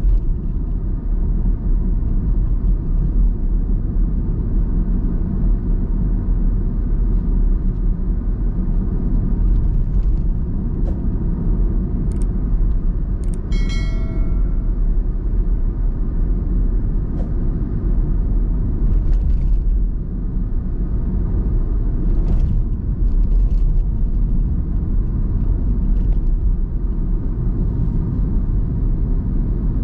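Steady low rumble of a car driving along a highway: engine and tyre noise heard from inside the cabin. About halfway through comes a short bell-like chime.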